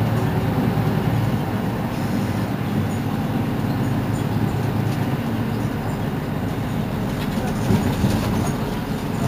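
Mercedes-Benz Citaro C2 city bus running, a loud, steady low rumble of engine and road noise with a few faint rattles.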